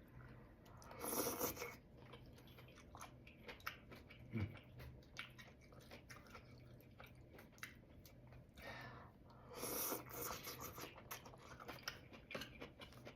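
A person chewing and biting food close to the microphone, with many small wet mouth clicks. There are two louder, noisier stretches, about a second in and again around ten seconds.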